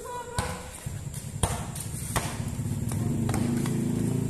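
A motor vehicle's engine drones steadily, growing louder through the second half. A ball bounces sharply on concrete a few times.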